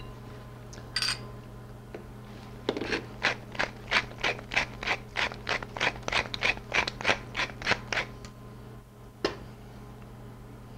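Hand pepper mill being twisted to grind peppercorns: a run of rapid grinding clicks, about four a second, lasting some five seconds, with a lone click near the end.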